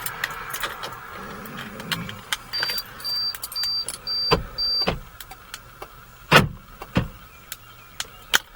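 Electrical sounds in a 1989 Porsche 928 with a dead battery: five short high beeps about half a second apart, then several sharp clicks and knocks.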